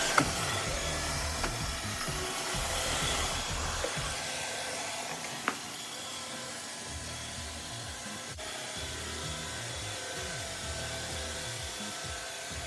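iRobot Roomba robot vacuum running across the floor: a steady whir of its motor and brushes, with two sharp clicks, one just after the start and one about halfway through.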